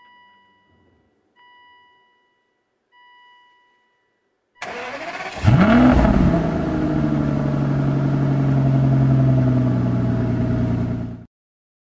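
Three short electronic chimes from the dashboard. Then, about four and a half seconds in, an Aston Martin DB9's V12 cranks and fires, flares its revs briefly and settles into a steady idle, which cuts off abruptly near the end.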